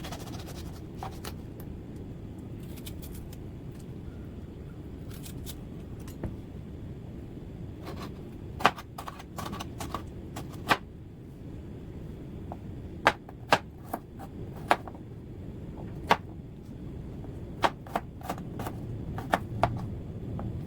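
Irregular sharp clicks and knocks, a dozen or so, most of them in the second half, over a steady low rumble.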